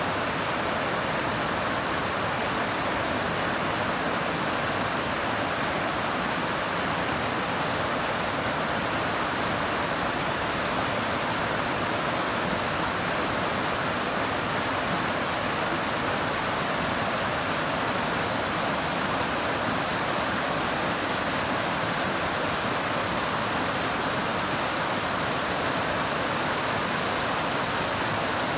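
Whitewater rapids of the South Fork Snoqualmie River rushing over boulders, a steady loud roar of water. The river is running high, swollen by heavy rain washing away fresh snow.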